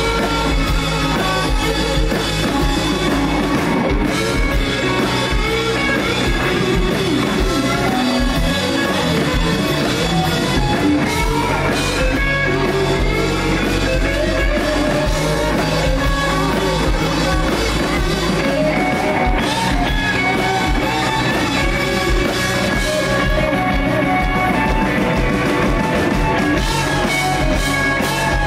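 Live rock band playing: electric guitars, including a Stratocaster-style guitar, over a drum kit, loud and continuous.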